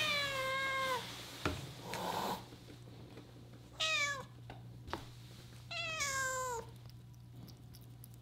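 Domestic cat meowing three times, each call falling in pitch: the first is already sounding at the start and ends about a second in, the second is short, just before four seconds, and the third is the longest, around six seconds in. A couple of faint clicks fall between the calls.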